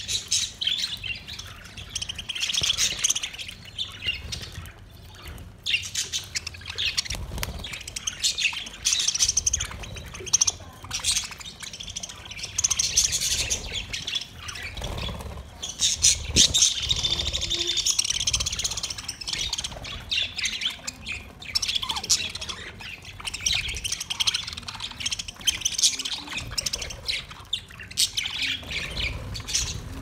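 A flock of budgerigars chattering and chirping, many warbling calls overlapping without a pause, busiest about halfway through.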